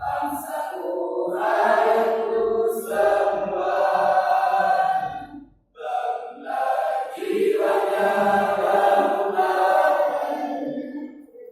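A choir singing in sustained phrases. The singing breaks off briefly about halfway through, then a new phrase starts.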